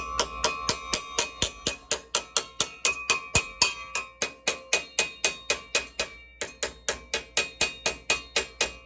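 Hammer blows on a metal part to bend it, struck rapidly and evenly about four or five times a second, each with a short metallic ring, with a brief pause about six seconds in.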